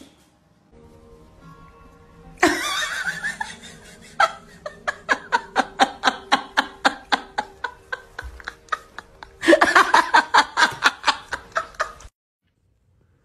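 A person laughing hard in quick repeated bursts, about three a second, over faint background music; the laughter gets louder near the end and then cuts off abruptly.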